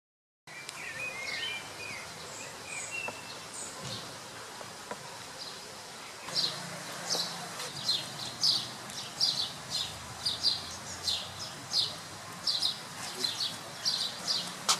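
After a brief dead silence, outdoor background noise with birds chirping; from about six seconds in, a short high chirp repeats about twice a second.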